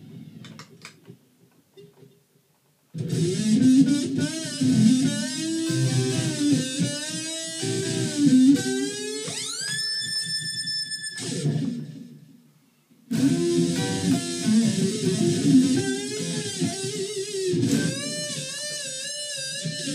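Fender Stratocaster with humbuckers played through a Roland Micro Cube amplifier and a Boss NS-2 noise suppressor: riffs and single notes, with sustained notes bent upward in pitch about ten seconds in and with vibrato near the end. Between phrases the sound drops to near silence twice and the playing comes back in abruptly.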